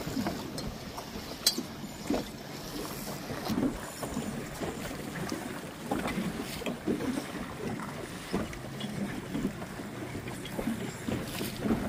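Choppy water slapping and splashing irregularly against a small boat's hull, with wind rushing over the microphone.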